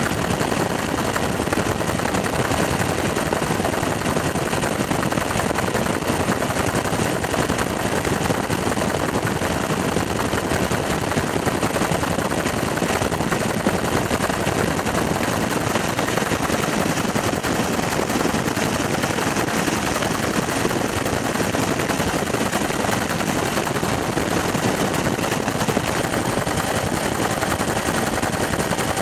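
Aircraft in flight heard from on board: a loud, steady drone with a fast, even chop, typical of a helicopter's rotor and engine.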